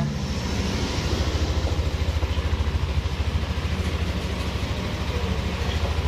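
Yamaha NMAX scooter's single-cylinder engine idling with a steady, rapid low pulsing.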